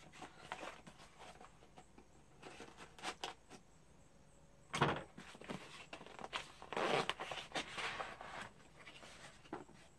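A cardboard shipping box being cut open with a pocket knife and its flaps pulled open: small clicks and cardboard handling, a sharp knock about five seconds in, then a longer rasp of cardboard and tape from about seven to eight seconds.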